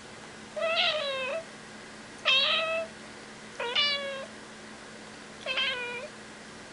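Domestic cat meowing four times, short meows about one and a half seconds apart, each dipping slightly in pitch and then levelling off.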